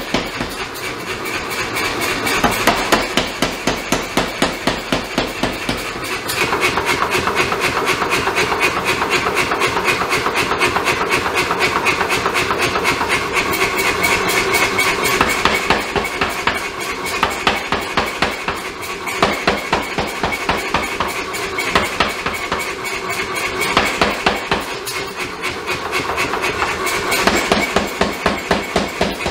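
Power hammer pounding a red-hot damascus steel knife blade, a fast, steady run of blows several times a second over a steady hum from the running machine.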